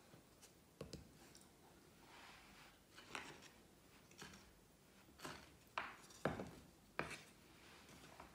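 Several short, light taps and scrapes of handling, spread irregularly over the few seconds, the loudest a little past six seconds in, over a quiet room.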